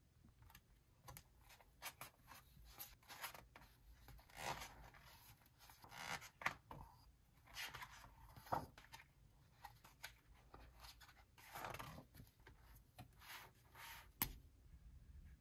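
Glossy pages of a paperback activity book being flipped and its card cover handled: irregular soft paper rustles and swishes with a few sharp taps, the sharpest near the end.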